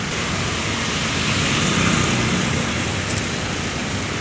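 Diesel intercity coach engine running close by as the bus pulls slowly past, a steady rumble that swells slightly about two seconds in.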